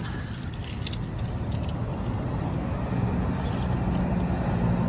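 Steady low engine drone with a faint hum, the hum growing a little stronger about three seconds in.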